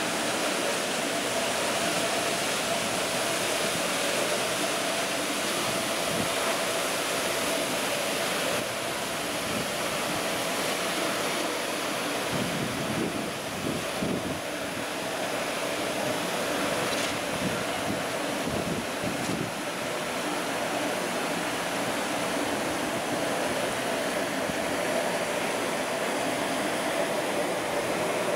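Steady outdoor rushing noise with a constant machine hum underneath.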